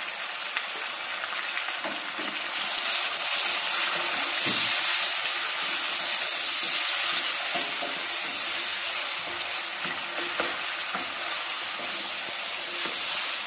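Chopped onion, tomato and green chilli sizzling in hot ghee in a steel pan while being stirred with a wooden spoon: a steady frying hiss that grows louder a few seconds in, with a few light knocks of the spoon.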